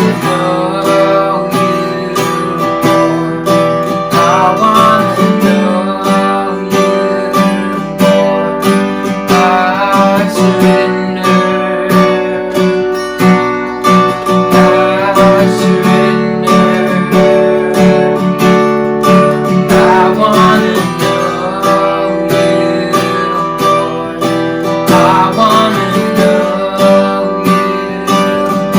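Acoustic guitar strummed steadily in chords, accompanying a worship song.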